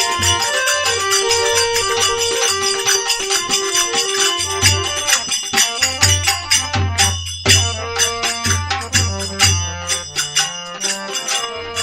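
Instrumental interlude of a Rajasthani folk bhajan: a melody line moving between held notes over a steady beat of low drum strokes and jingling hand percussion.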